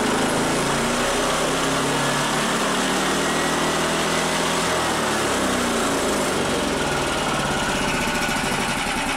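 Lifan KP460 single-cylinder four-stroke engine on a PZ30 carburettor revving up, then held near full throttle. It will not rev past about 5000 rpm on this carburettor, even with a 250 main jet.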